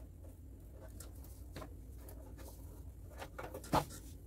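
Faint, scattered clicks and light knocks of cables and connectors being handled and arranged, with one sharper click near the end, over a low steady hum.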